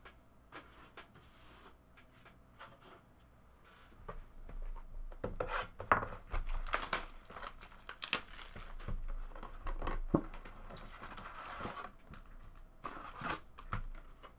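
Plastic shrink-wrap being torn and crinkled off a trading-card hobby box, with sharp crackles, followed by rustling as the foil card packs are handled and set down. The first few seconds are nearly quiet before the tearing starts.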